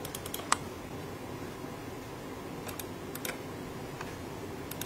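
Scattered short, sharp clicks from a computer being operated while navigating to a folder, one louder click about half a second in, over a steady low hiss of room and fan noise.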